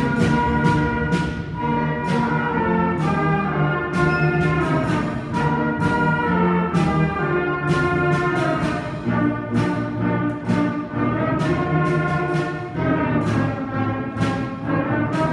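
School beginning concert band playing a holiday piece: held brass and wind notes changing chord every second or so, with sharp strikes from the percussion keeping the beat.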